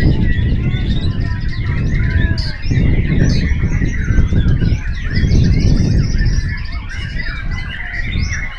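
White-rumped shamas (murai batu) singing in competition, several at once: a dense, overlapping chorus of rapid whistles, trills and chatters. Under the birdsong runs a loud low rumble of background noise that swells and dips.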